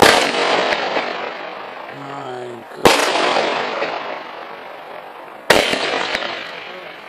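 Nico Mephistos Fire firework battery firing: three sharp bangs of bursting shots about two and a half to three seconds apart, each trailing off slowly.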